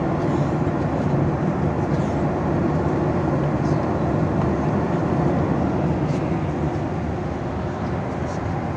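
Airliner cabin noise in cruise flight: a steady, even rush of engine and airflow noise, deepest and strongest in the low range, heard from inside the cabin.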